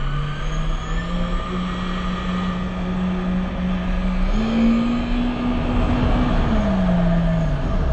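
Jet ski engine running under throttle over the rush of water and wind; its pitch climbs in two steps, about a second in and about four seconds in, then drops near the end as the throttle is eased off.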